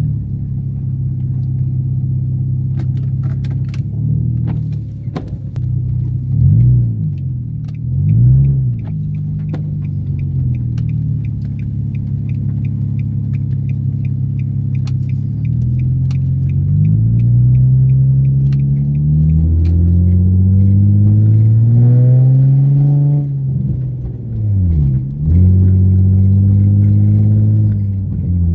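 Nissan 350Z Nismo's 3.5-litre V6, heard from inside the cabin, running at a steady cruise, then two short dips and rises in engine speed about six and eight seconds in. Later the engine pulls up through the revs under acceleration, with a gear change near the end. A regular light ticking runs through the middle stretch.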